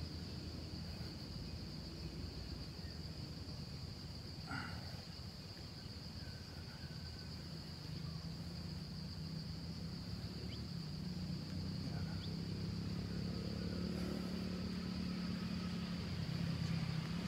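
Steady high-pitched insect chorus drones throughout. From about halfway a low engine hum of a passing road vehicle rises and grows louder toward the end.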